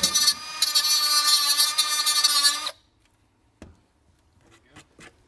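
Milwaukee cordless cut-off tool running at a high whine as its disc cuts through the adjuster rod on a Euro headlight housing; it stops suddenly about halfway through. A knock and a few light clicks follow as the part is handled.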